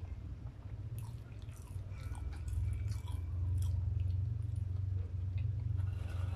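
Close-up chewing and wet mouth clicks of a person eating crispy fried chicken, over a low hum that grows louder a couple of seconds in.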